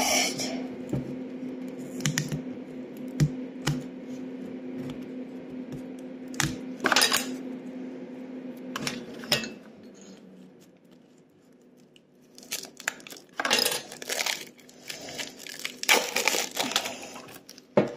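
Clear plastic film crinkling and tearing as it is peeled off a small plaster treasure-chest block, with light clicks and taps of fingers on the plaster. A steady low hum runs underneath and stops about halfway through.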